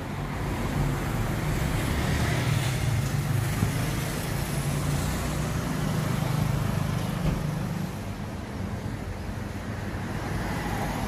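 Motor vehicle engine and road noise: a steady low engine hum that eases off about eight seconds in.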